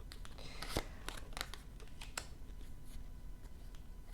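Tarot cards being handled on a table: scattered light clicks and rustles of cards being slid and tapped, the sharpest about a second in.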